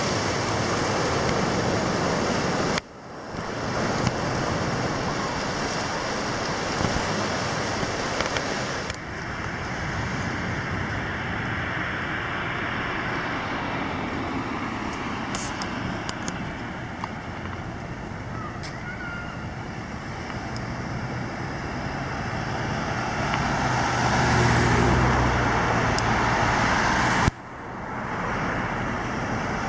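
Surf breaking on rocks for the first few seconds, then road traffic: cars driving past on a street, with one passing closer and louder with a low rumble near the end.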